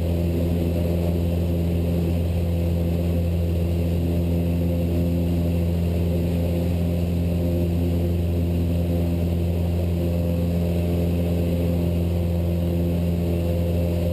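Cessna 172 Skyhawk's piston engine and propeller running steadily just after takeoff, a low even drone with no change in pitch.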